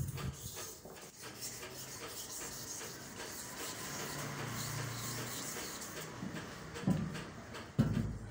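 Cast-iron sewing machine body castings being handled and shifted by hand on a concrete floor, with rubbing and scraping and dull knocks as they are set down: one at the very start and two near the end.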